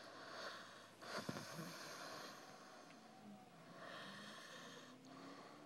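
Faint snoring from a person passed out drunk: three noisy breaths, the loudest starting with a sharp snort about a second in.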